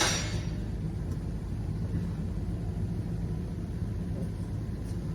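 Steady low background rumble, with a short hiss right at the start that fades within about half a second.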